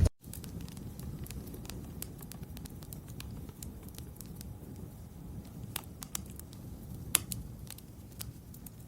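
Fire burning: a low steady rumble of flames with scattered sharp crackles and snaps, one louder pop about seven seconds in.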